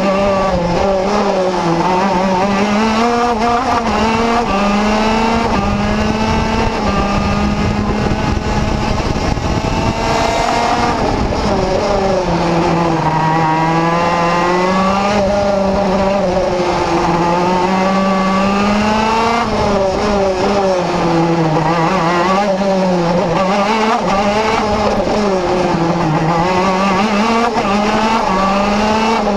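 Vortex RVXX 125 cc two-stroke engine of a Tonykart KZ2 gearbox kart at racing speed, recorded onboard. Its revs climb and drop again and again through gear changes and corners.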